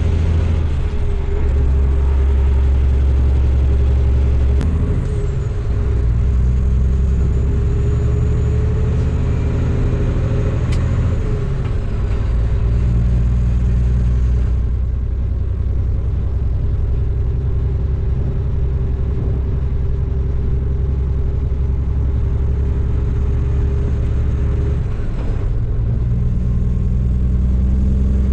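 Heavy diesel truck engine running under way, a steady low drone whose pitch shifts three times, about 5, 12 and 25 seconds in, as the gears are changed.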